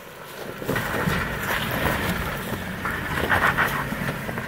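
Jeep Wrangler Rubicon crawling up a rock ledge in low gear: the engine running under load, with tyres grinding and crunching over rock and dry leaves, growing louder about a second in.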